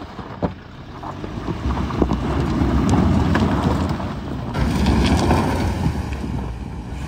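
Toyota Fortuner SUV engine pulling hard while its tyres spin in loose sand and gravel on a steep off-road climb. The vehicle is struggling, its chassis scraping and beaching, with a few sharp knocks of stones and wind on the microphone.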